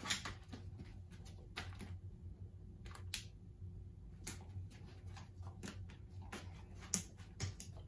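Faint, irregular light clicks and taps from a dog fetching toy rings on a hard floor, with the loudest tap about seven seconds in, over a faint steady low hum.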